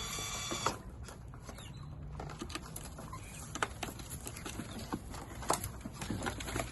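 Backyard chickens moving about, heard as a scatter of small irregular ticks and scratches after a piece of music cuts off about half a second in.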